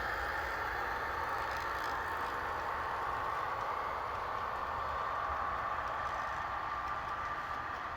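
Model diesel passenger train running, its sound decoder playing a diesel locomotive engine sound through a small onboard speaker. The sound is steady and eases off slightly near the end.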